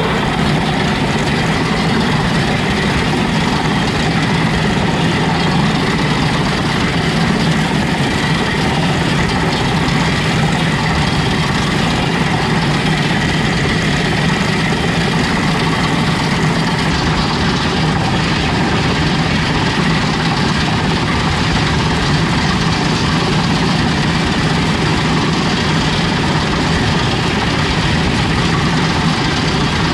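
Combine harvester running steadily while cutting soybeans, its engine and threshing machinery giving a loud, even drone with a constant low hum and a higher whine.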